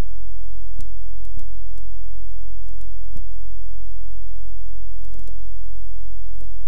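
Loud, steady electrical mains hum with a buzzing row of overtones above it, broken by scattered clicks and crackles.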